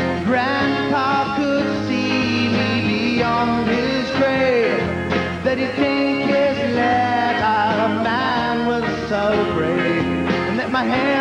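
Live rock band music: acoustic and electric guitars with a singer's voice over them.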